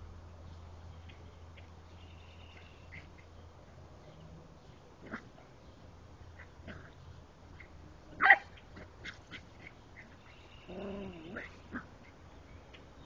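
Mini Australian Shepherd puppy at play, with scattered short taps and scuffs, one sharp bark about eight seconds in, and a short wavering vocal sound near the end.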